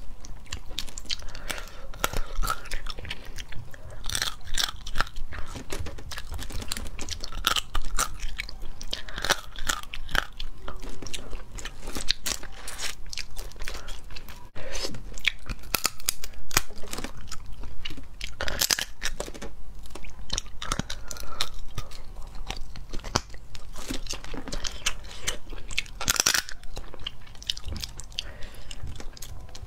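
Cooked crawfish shells cracking and crunching as they are pulled apart by hand and bitten, with chewing, picked up close by a clip-on microphone. A dense run of sharp crackles and snaps throughout.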